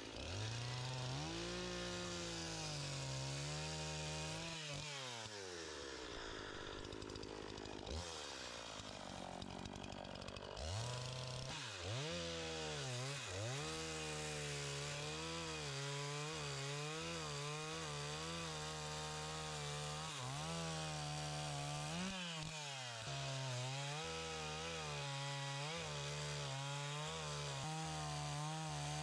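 Gasoline chainsaw carving into a wood log, its engine revving up and down as it cuts. It eases off twice in the first ten seconds, revs back up about eleven seconds in, then runs more steadily with a wavering pitch.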